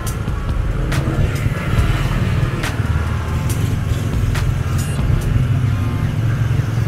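Motorcycle engine running steadily while riding, with a few sharp knocks along the way.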